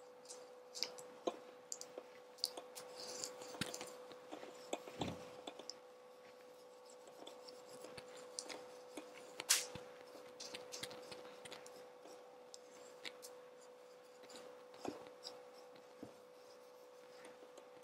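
A paper napkin rubbing oil over the nonstick plate of an electric waffle maker: faint, scattered scratching and rubbing with light taps, and one louder tap about halfway through. A steady faint hum runs underneath.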